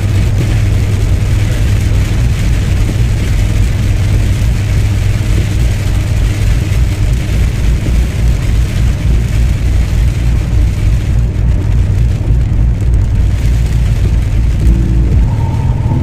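Steady low rumble of a car on the move, engine and road noise. About a second and a half before the end, music with held notes comes in over it.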